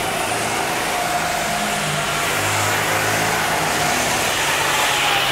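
A Sodi RT8 rental kart's small engine runs as the kart drives past on a wet track, rising to its loudest about two to three seconds in. Underneath is a steady hiss of rain.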